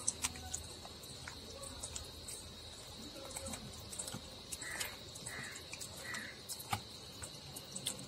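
A hand squishing and turning marinated chicken pieces in a stainless steel bowl, giving faint wet squelches and scattered small clicks, over a steady high-pitched insect drone.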